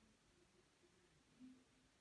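Near silence: room tone, with one faint brief sound about one and a half seconds in.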